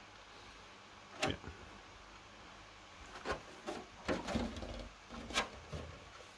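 Unpainted clear polycarbonate RC car body shell being handled and flexed: scattered sharp plastic crackles and rubbing, one about a second in and a cluster over the second half.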